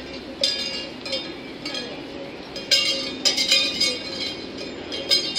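Irregular metallic clinks and clanks, each with a short ringing tail, from the scaffold-built hanging-bar obstacle as racers swing along it hand over hand. The clinks come in quick clusters about three seconds in.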